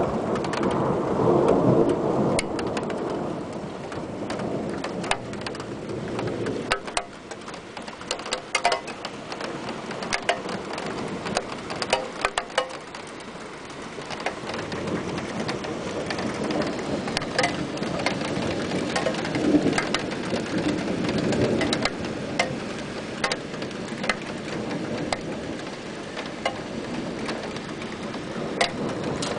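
Thunderstorm: rain falling steadily with many sharp drop ticks, while thunder rumbles twice. The first roll fills the opening seconds and stops abruptly, and a second roll comes about halfway through.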